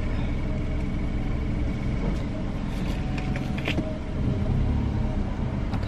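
Car engine idling, heard from inside the cabin as a steady low rumble. A few light rustles and clicks come between about two and four seconds in.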